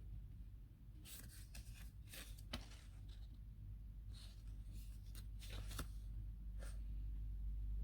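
Faint, scattered rustles and light clicks of packaging being handled during an unboxing, over a low steady hum.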